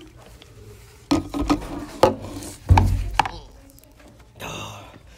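Wooden library chair scraping and knocking against the floor and table as someone sits down, with rubbing and several thumps, the heaviest about three seconds in.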